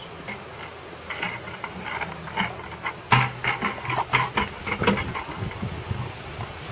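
A plastic bucket being shoved and dragged over grass by a Labrador with its head inside it: a quick, irregular run of knocks and scrapes, loudest about three seconds in, thinning out near the end.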